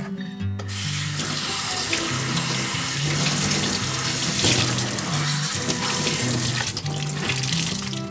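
Kitchen tap running into a stainless steel sink, the stream splashing over a wet cotton cheesecloth held in the hands; the water starts about a second in and runs steadily. Background music with a steady bass line plays underneath.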